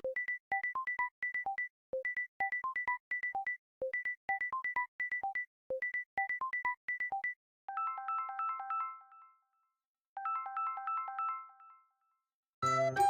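Samsung Galaxy phone ringtone: a quick electronic melody of short, clean blips, repeating its figure about every two seconds. Then a brighter rippling chime is played twice, each time fading out. A louder, fuller tune starts just before the end.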